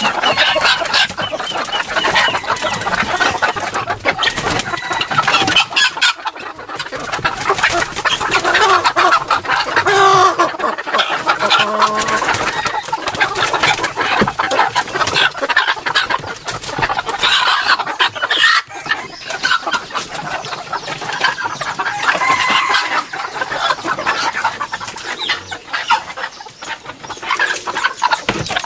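A crowded flock of wild-chicken roosters in a bamboo coop clucking and squawking over one another, agitated as a hand reaches in to catch them, with a crow now and then.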